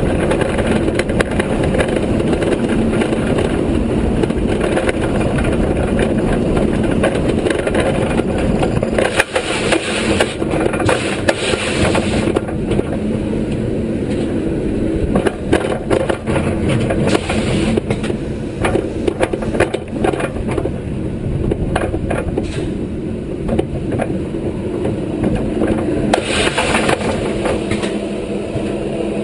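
B&M inverted roller coaster train running over its track, a loud steady rumble of wheels and rushing air. After about nine seconds it eases as the train slows, giving way to scattered clanks and knocks as the train crawls over the brake run and into the station.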